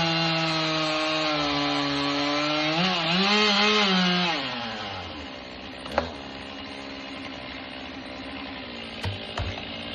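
Two-stroke chainsaw running at high revs through wood, its pitch sagging and wavering under load, then winding down to idle about four to five seconds in. A sharp knock about six seconds in and two thumps near the end.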